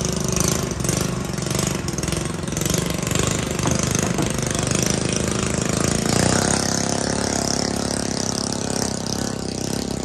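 An engine running steadily, its sound shifting slightly about six seconds in.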